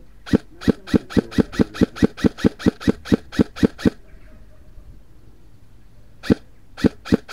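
Airsoft rifle fired close to the microphone in a rapid string of sharp shots, about five a second, for over three seconds. After a pause there is a single shot, then the string resumes near the end.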